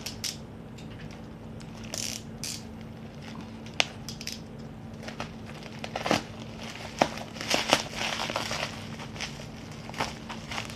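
A parcel being opened by hand: its packaging crinkles and rustles in short bursts, with scattered sharp clicks and snaps. A faint steady low hum runs underneath.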